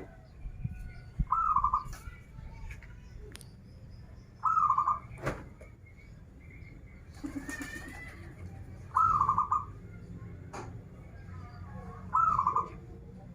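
Zebra dove (perkutut) cooing: four short rippling coo phrases spaced a few seconds apart, with faint chirps and clicks between them.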